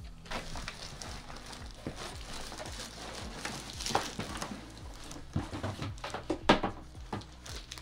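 Cardboard box and plastic wrapping handled as an air purifier is pulled out of its shipping box: rustling and scraping with scattered knocks, the sharpest about six and a half seconds in.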